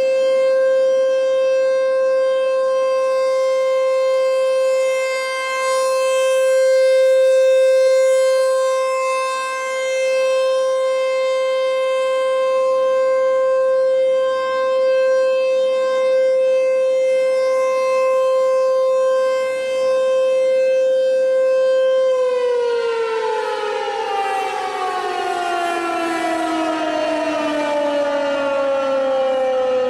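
Outdoor tornado warning siren holding one steady tone, then winding down after about twenty-two seconds, its pitch falling steadily as it shuts off.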